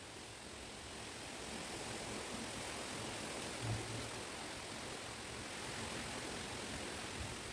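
Wind gusting through a chestnut coppice wood: a steady rushing hiss that swells and then eases, with a brief low buffet of wind on the microphone about three and a half seconds in.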